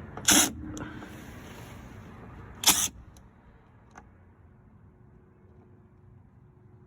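DeWalt cordless drill/driver with a T30 Torx bit on an extension, triggered twice in short bursts of about a quarter second each, with a faint click near the end.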